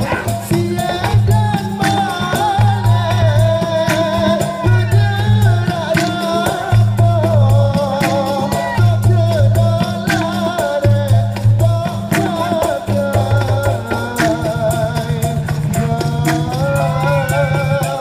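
Live dikir barat music: a sung melody over a percussion ensemble of drums, gong and shakers. The low drum strokes come in a repeating pattern that runs together into a steady low pulse near the end.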